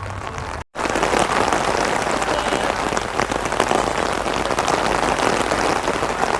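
Heavy rain pouring down: a dense hiss full of close raindrop patters. It breaks off for an instant under a second in, then carries on steady and a little louder.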